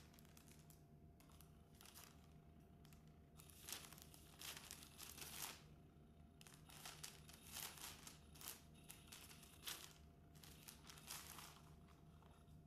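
Crinkling and rustling of a Catch Me If You Can cat toy's fabric cover in short, irregular bursts, as a kitten paws and pounces at the feather wand moving beneath it.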